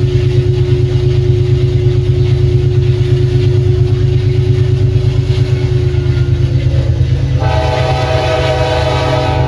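Amtrak GE Dash 8-32BWH locomotive running with a steady low rumble. About seven and a half seconds in, its Nathan K5LA five-chime air horn blows one loud chord for about two seconds.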